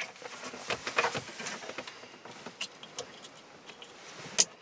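Plastic wiring-harness connectors and loose wires being handled and rustled, with scattered light clicks, then a sharp click near the end as a connector snaps into its socket.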